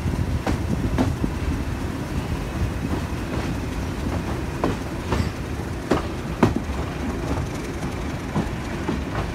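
Passenger train coach running on jointed track, heard from an open carriage window: a steady rumble with pairs of wheel clicks over the rail joints, each pair about half a second apart, the loudest pair about six seconds in.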